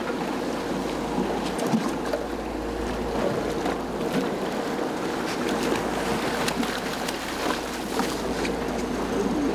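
Wind and sea noise on a fishing boat: water washing against the hull and wind on the microphone, with scattered light clicks and a faint steady hum.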